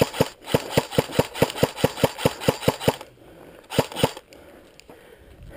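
Airsoft gun firing a rapid string of shots, about six a second, which stops about three seconds in, followed by two more shots a little later.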